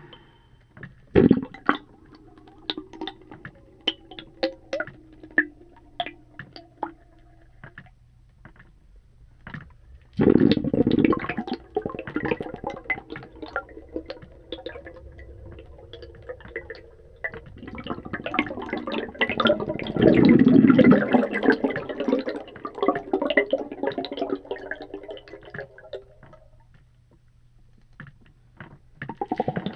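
Air from a tire pump bubbling out underwater, heard through a hydrophone: scattered sharp pops, then two louder gurgling bursts, one about ten seconds in and a longer one about eighteen seconds in, each with ringing tones trailing under it.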